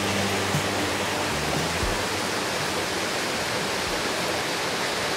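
Forest stream rushing steadily over rocks, a continuous even hiss of running water.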